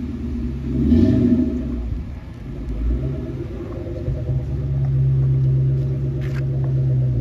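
Ford Mustang's engine rumbling as the car pulls away at low speed, with a short rev that rises and falls about a second in, then a steady engine note.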